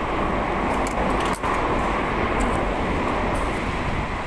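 A Nankai Main Line train running past the station: a broad rumble that swells, holds, and starts to fade near the end.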